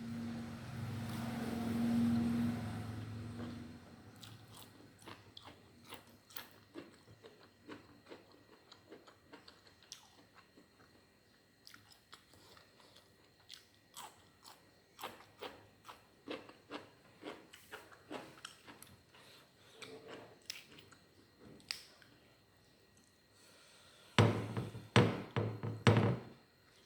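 Close-up mouth sounds of a person eating: wet chewing with many small irregular clicks, then several loud crisp bites and crunches near the end. A steady low hum runs for the first few seconds.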